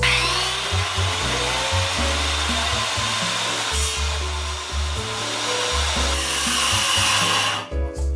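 Handheld electric circular saw spinning up and cutting through a wooden kitchen cabinet panel. It stops shortly before the end.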